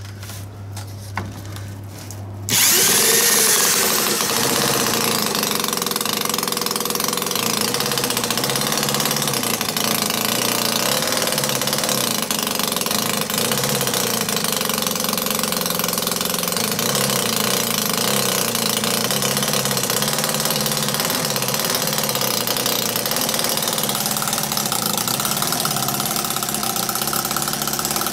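An electric drill briefly spins the flywheel of a 10cc single-cylinder, water-cooled flathead petrol model engine (the Edgar Westbury Whippet design). About two and a half seconds in, the loud, steady running of the little engine begins suddenly and holds to the end.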